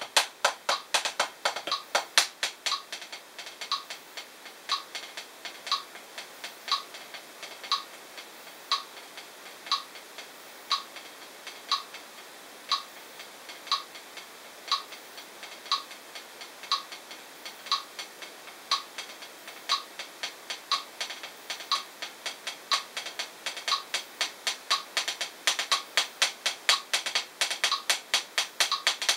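Hickory drumsticks playing quick rudiment strokes on a practice pad for about two seconds, then a metronome clicking alone, one click a second at 60 bpm, while the sticks rest. The sticks come back in about four seconds before the end.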